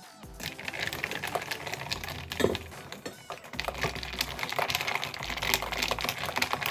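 Metal spoon stirring chocolate into milk in a glass mason jar: quick, irregular clinks and taps of the spoon against the glass, with one louder knock about two and a half seconds in.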